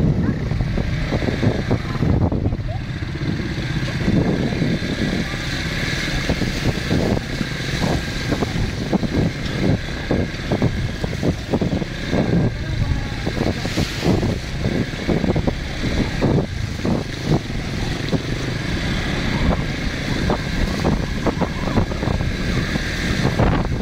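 Small motorcycle engine running as it rides through a shallow river, with water splashing under the tyres and wind buffeting the microphone, a constant rough rumble.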